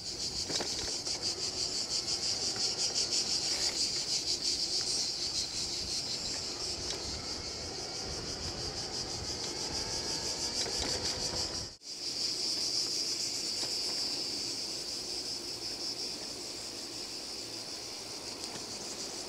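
A steady, finely pulsing chorus of insects, with the faint rising whine of an e-bike's motor in turbo mode beneath it. The sound cuts out briefly about twelve seconds in.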